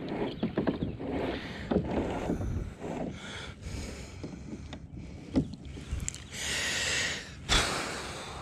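Irregular knocks, clatters and rattles of fishing gear being handled in a small boat. Near the end comes a brief rushing hiss, followed by one loud thump.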